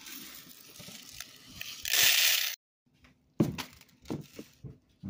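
Kitchen handling noise around a plastic bowl of rice and its lid: rustling and clatter, a loud hissing rush of under a second about two seconds in, then a sudden dropout followed by a few sharp clicks and knocks.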